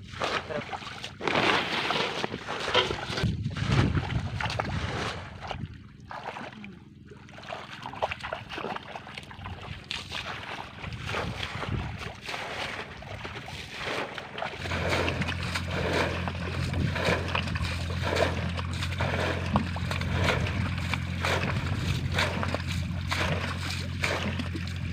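Water being bailed by hand with buckets out of a muddy pool and flung over the bank: repeated splashes and sloshing, one throw after another. A steady low drone joins about halfway through.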